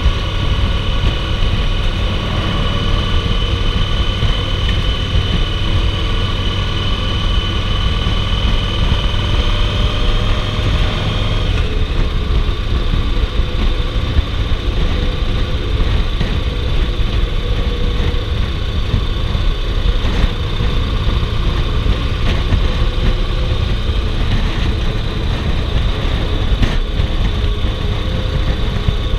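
2008 Yamaha Roadliner's air-cooled V-twin running steadily at cruising speed, mixed with tyre noise from the steel-grated bridge deck and wind rush. A steady high whine sits over it for roughly the first ten seconds, then fades.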